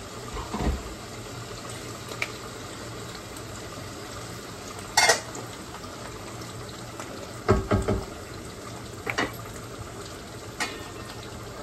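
Food frying in a pan with a steady sizzle, and a spoon clinking and knocking against the pan now and then, loudest about five seconds in.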